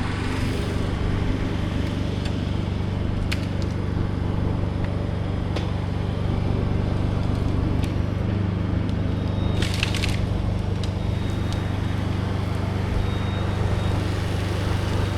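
A motor engine running steadily at a constant low hum, with scattered light clicks and a short hiss about ten seconds in.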